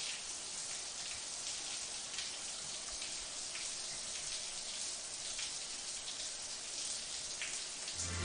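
Overhead rain shower head running: water pouring down in a steady, even patter with small splashes.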